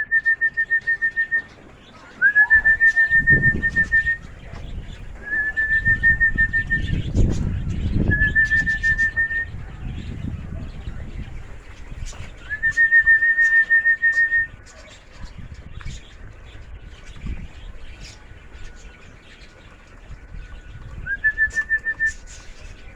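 A trilling whistle sounded in six blasts of one to two seconds each, each starting with a short upward slide and then held steady, typical of a pigeon fancier calling birds in to the loft. A low rumble runs under the middle blasts.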